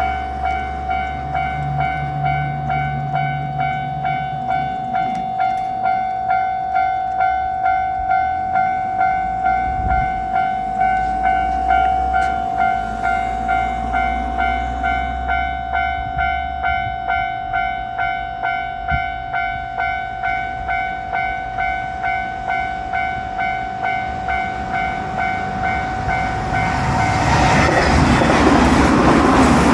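Japanese level-crossing warning bell ringing in a steady, evenly repeating clang. About 27 seconds in, the JR Shikoku 8000-series electric limited express arrives and its loud passing noise swamps the bell.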